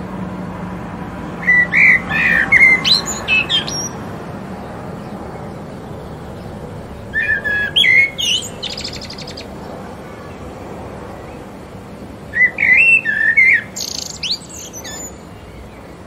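A songbird sings three phrases about five seconds apart. Each phrase is a quick run of varied whistled notes, and the later two end in a fast buzzy trill. Under the song runs a steady background hiss.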